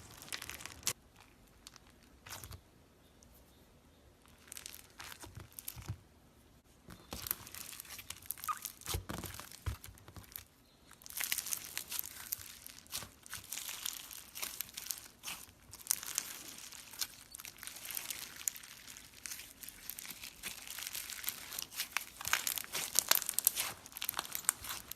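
Slime being squeezed and stretched by hand, making crackling, crinkling clicks. They are sparse for the first several seconds and grow dense and continuous from about eleven seconds in.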